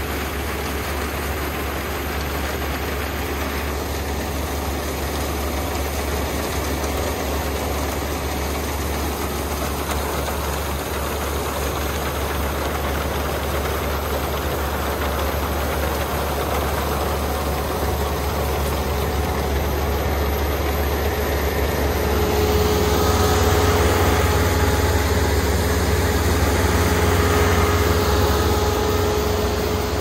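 Kubota Dynamax REVO combine harvester's diesel engine and cutting machinery running steadily while it harvests rice, a constant low drone. About three-quarters of the way through it grows louder and a steady hum joins it.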